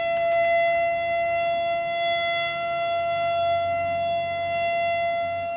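Nuclear power plant emergency warning siren sounding one steady tone at a constant pitch during a test of the warning sirens.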